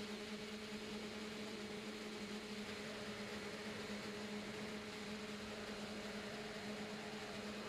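Electric motors and propellers of an RC tricopter droning at a steady pitch, heard through the onboard camera's microphone over a constant hiss.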